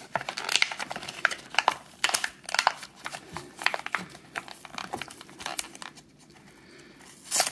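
Stiff cardboard and plastic packaging being handled and torn at by hand: irregular crinkling, crackling and snapping, busiest in the first few seconds, quieter after about five seconds, with one louder crackle near the end.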